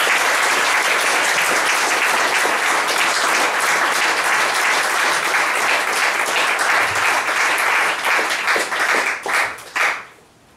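Audience applauding steadily, thinning to scattered separate claps and dying away near the end.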